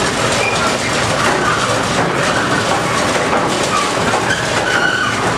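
Olive mill machinery running with a loud, steady rattling clatter: the millstone crushing mill and its belt drive at work.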